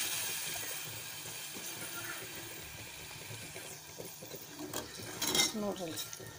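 Curry sizzling and hissing in an aluminium pot on a gas stove, the hiss fading over the first few seconds. Then a steel ladle stirs and clinks against the pot several times near the end.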